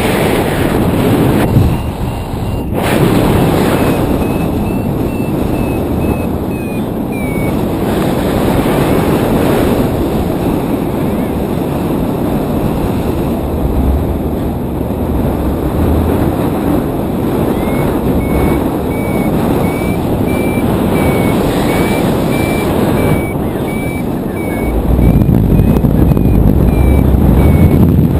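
Wind rushing over the microphone in flight, louder near the end. Over it, a paragliding variometer beeps in quick short pulses at a high pitch, from about three to seven seconds in and again through the second half, its pitch drifting up and down with the climb: the sign that the glider is climbing in lift.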